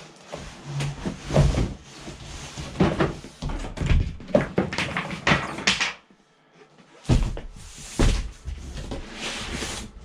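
Large cardboard shipping box being pulled open and its top lifted off: cardboard scraping, rustling and knocking in irregular bursts, with a pause of about a second two-thirds of the way through.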